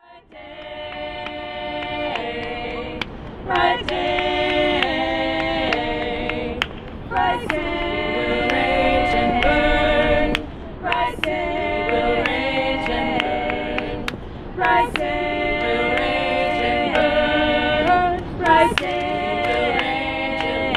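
A small group of women singing a cappella together, held notes in phrases separated by brief pauses every few seconds.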